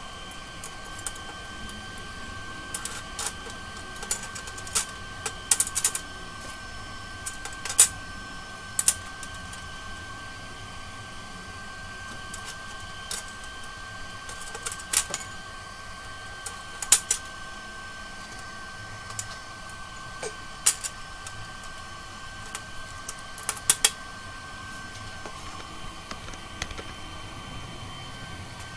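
Irregular sharp clicks and taps, about twenty of them at uneven intervals, over a steady high hum: metal parts and tools being handled during the rack build.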